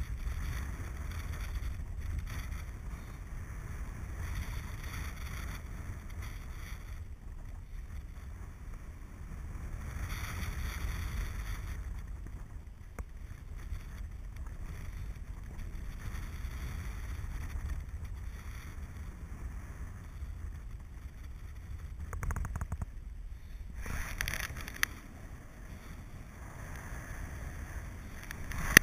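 Air rushing over the microphone of a paraglider pilot's camera in flight: a low rush that swells and eases, with a sharp knock near the end.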